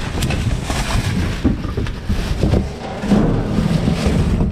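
Rustling and crinkling of a plastic bag and bubble wrap, with scraping and dull thumps, as gloved hands pull a sheet-metal printer chassis out of its wrapping.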